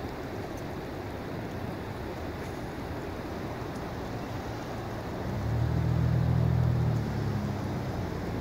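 Steady outdoor rush of river water and wind on the microphone. A louder low rumble swells about five seconds in and drops back after under two seconds.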